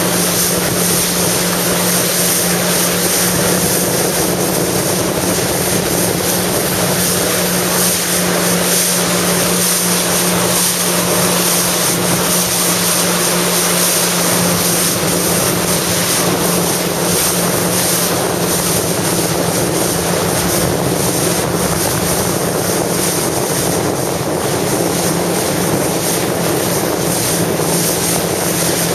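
Jet ski engine running steadily at an even cruising speed, a constant drone, with the rush of water and wind on the microphone.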